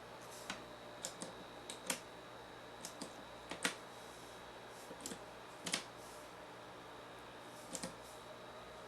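A dozen or so small, irregularly spaced clicks, like buttons and switches being pressed on a plastic clock radio, over a faint steady electrical hum.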